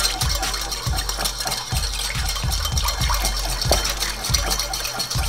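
Wire whisk beating an olive-oil and lemon vinaigrette in a ceramic bowl: rapid clicking and scraping of the metal tines against the bowl, emulsifying the dressing. A low rumble runs underneath.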